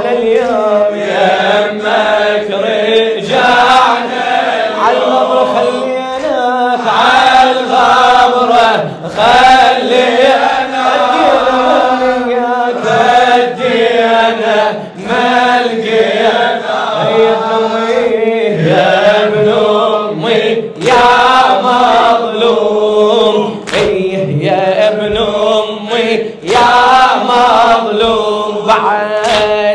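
Men's voices chanting a mournful Arabic lament in unison, a sung refrain that carries on without a break.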